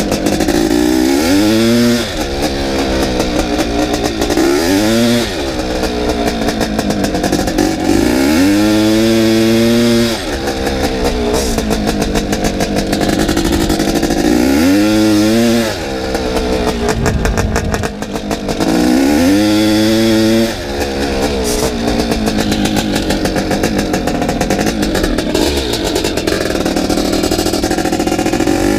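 700cc two-stroke Zabel dirt bike engine under hard acceleration, its buzzing note climbing in pitch and then dropping off about five times as the throttle is opened and shut through the gears, then held high and steady near the end.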